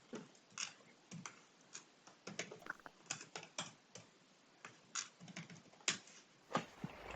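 Faint, irregular typing on a computer keyboard, keystrokes coming singly and in small clusters.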